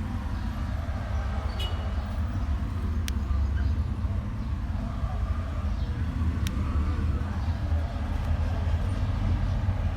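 A pigeon squab snapping its beak: three sharp, isolated clicks a second or more apart, over a steady low rumble.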